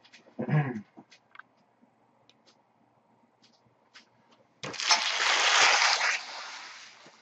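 Light clicks of cards being handled, then about two and a half seconds of loud rustling and crinkling as torn pack wrappers and packaging are cleared off the table. The rustling starts suddenly and fades away near the end.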